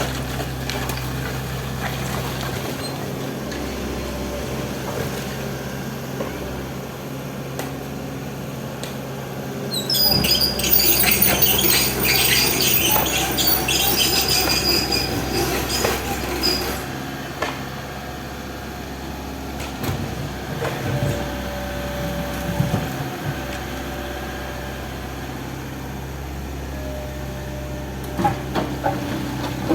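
Excavator engine running steadily. About ten seconds in, a loud stretch of high squealing and clatter lasts some seven seconds, then the engine goes on alone.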